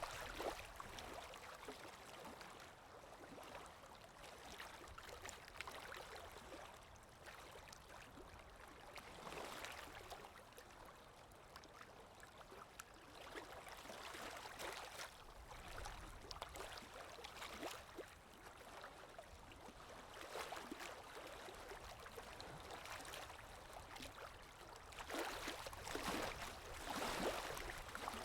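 Lake Erie waves washing onto the shore: a steady hiss of surf that swells every few seconds as each wave breaks, with the two loudest surges coming close together near the end.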